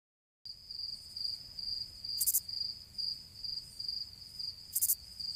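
Crickets chirping: a high-pitched trill pulsing in a quick, even rhythm. It starts suddenly about half a second in. Two short, higher hisses come through about two seconds apart.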